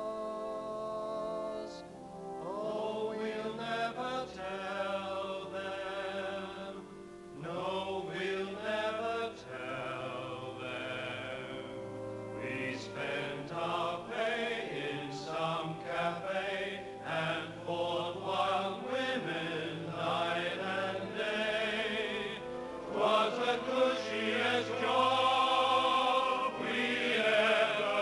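A choir singing a slow song in harmony over orchestral accompaniment, growing louder in the last few seconds.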